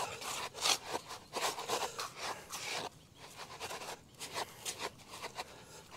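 Hands stirring and kneading damp feeder groundbait with hemp seed in a bucket: irregular rustling, scraping strokes.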